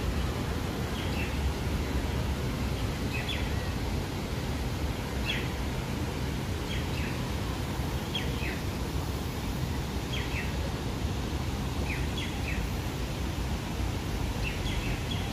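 A bird chirping over and over, short chirps often in pairs, every second or two, over a steady low outdoor rumble.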